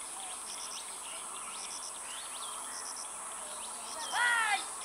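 Steady high-pitched insect buzzing with small bird chirps over it. Near the end comes one loud, short, pitched call.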